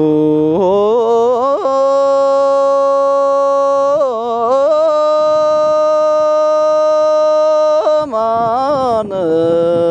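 A single voice singing a slow chant, unaccompanied: long steady held notes joined by short wavering, ornamented turns in pitch.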